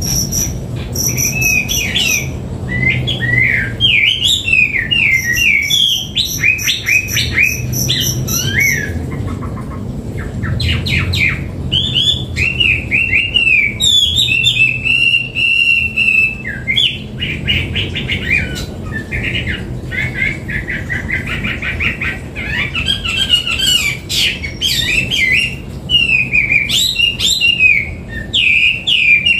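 Chinese hwamei singing a long, varied song of rapid whistled phrases, glides and trills, with barely a pause, over a steady low hum.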